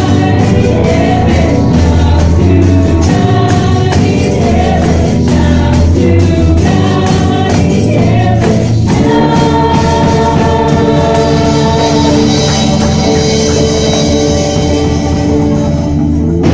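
Upbeat gospel praise song with singing and tambourine. About nine seconds in the rhythm stops and the song ends on a long held chord.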